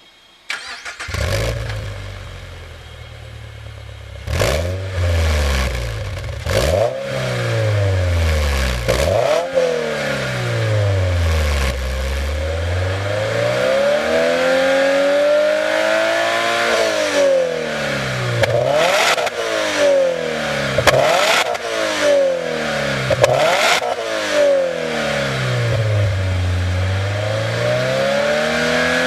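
Toyota GR86 / Subaru BRZ 2.4-litre flat-four breathing through a Kakimoto Regu.06&R aftermarket muffler. It starts about a second in and idles, then is revved again and again from about four seconds in: quick blips and longer climbs, each falling back to idle.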